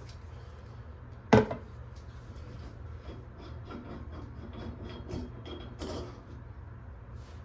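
One sharp knock about a second in, then scattered light clicks and scraping of objects being handled, over a steady low hum.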